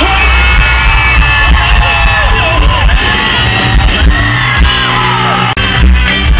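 Loud live sertanejo band music from a PA, with a man's voice singing a melody over heavy bass. The bass drops away briefly about five seconds in.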